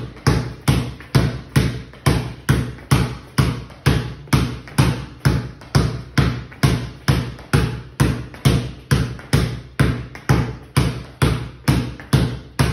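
A basketball dribbled continuously on a concrete floor: a steady, even run of bounces, about three a second, each with a short echoing tail.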